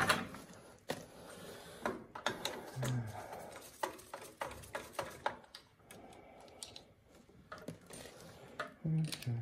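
Hand tools and burner parts being handled: scattered clicks, clinks and small knocks at irregular intervals, with clothing rustle in between.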